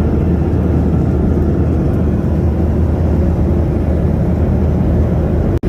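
Steady low cabin noise inside a Boeing 737-800 in flight: engine and airflow noise running evenly. It cuts out for an instant near the end.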